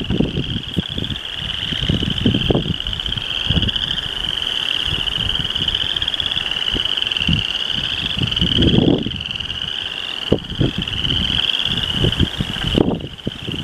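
A chorus of frogs trilling steadily at a pond, with irregular low rumbling noise on the microphone.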